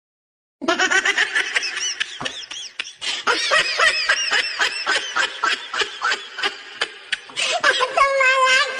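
High-pitched laughter in rapid repeated bursts, starting suddenly about half a second in and ending in a drawn-out wavering note.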